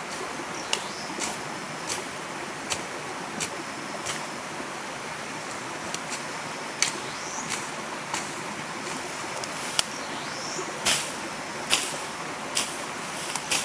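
A river flowing with a steady rush, with irregular sharp knocks or clicks, one or two a second. A faint short rising chirp repeats every few seconds.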